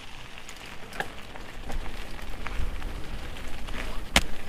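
Mountain bike rolling over a wet, loose dirt trail: tyres crackling over soil and grit, with scattered clicks and rattles from the bike. A low wind rumble on the microphone builds from a little under halfway in, and one sharp knock comes near the end.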